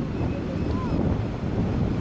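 Wind buffeting the microphone over the steady wash of ocean surf breaking on rocks: a constant low rumble.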